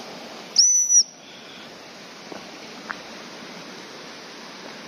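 A single short blast on an Acme gundog whistle, a steady high note lasting under half a second, about half a second in, over the steady rush of a rocky stream.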